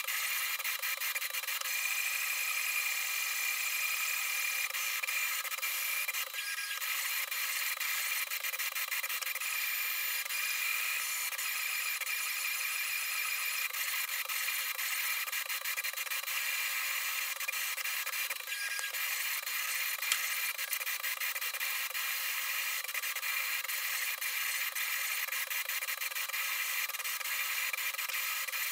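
Anycubic Kossel delta 3D printer printing: its stepper motors whine steadily over the hiss of its fans as the effector makes constant short moves. There are two brief lulls in the motion, and a single faint click late on.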